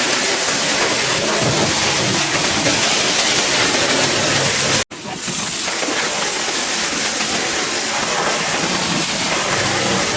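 High-pressure washer jet spraying water at full flow, a loud, steady hissing rush. It cuts off for a split second about halfway through, then resumes.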